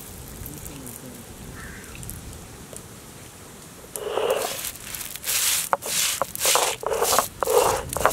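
Stone roller rolled back and forth over whole coriander seeds on a flat stone grinding slab, crushing them. The strokes start about halfway in and repeat steadily, one to two a second.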